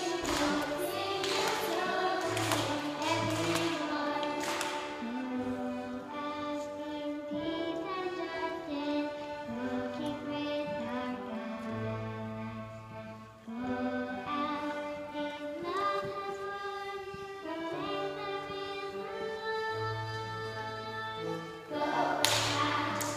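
Accordion and electronic keyboard playing a slow tune together in held notes over a bass line, with sharp taps over the first few seconds and again near the end.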